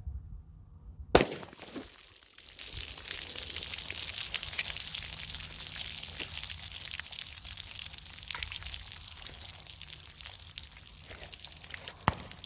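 A single shot from a Glock 33 pistol in 357 SIG about a second in, the loudest sound. From about two and a half seconds, water pours and splashes steadily out of the bullet-holed gallon jugs, with a sharp click near the end.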